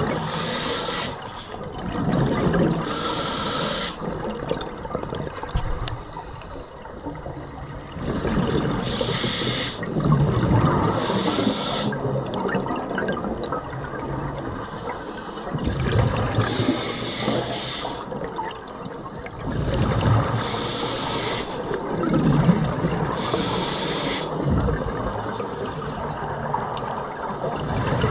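Scuba breathing heard underwater: a regulator hisses on each inhalation, and a burst of bubbles rumbles out on each exhalation, a breath every few seconds.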